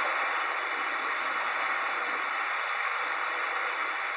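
Steady hiss of water and wind from a lakeshore video playing back through a laptop's small speakers, thin with nothing deep in it.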